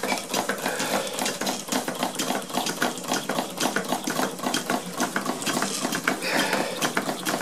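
Stuart model steam engines, the No. 8 among them, running on steam: a rapid, even beat of exhaust puffs with light mechanical clatter from the working parts.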